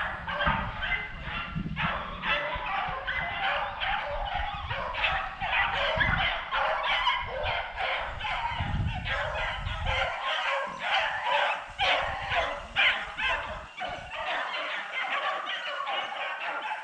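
A pack of beagles baying on a running rabbit, many voices overlapping in a continuous chorus.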